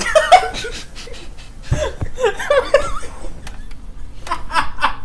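Two young men laughing hard together, in bursts of chuckling and snickering, with a thump about two seconds in.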